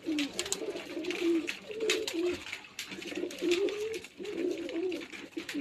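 Domestic pigeons cooing over and over, low warbling calls that rise and fall, with scattered light clicks among them.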